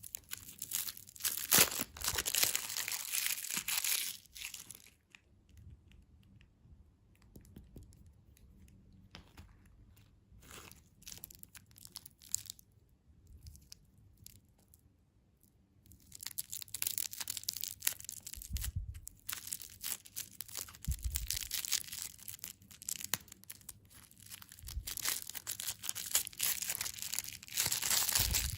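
Plastic candy wrappers being torn open and crinkled, in two busy stretches with a quiet spell of scattered small clicks in between, and a few dull thumps in the second stretch.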